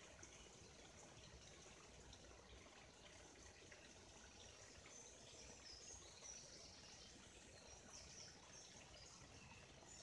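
Faint, steady trickle of a small forest stream, with a few soft, high bird chirps about halfway through.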